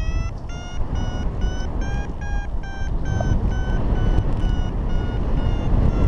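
Paragliding variometer beeping, a little over two short beeps a second, the pitch rising slightly and then easing: the climb tone a vario gives in rising air. Wind rushes steadily over the microphone underneath.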